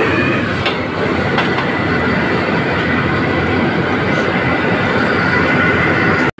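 Commercial gas wok burner running at full flame, a steady loud rush, with pieces of fried grouper sizzling in the wok and a few clinks of the steel ladle against it. The sound breaks off suddenly near the end.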